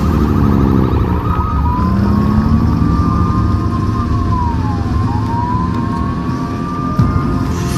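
Police siren: a brief fast yelp, then a slow wail rising and falling in pitch, over a steady low rumble of vehicles.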